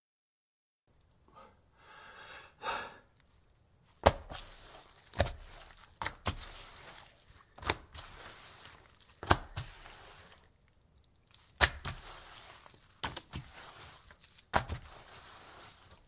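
A very wet dish towel on a wooden table. Softer wet sounds start about a second in, then come eight sharp wet slaps, one every one to two seconds, with a wiping rub between them.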